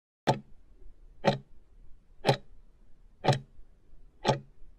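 Countdown timer sound effect: five clock-like ticks, one a second, marking the last seconds of a quiz's answer time running out.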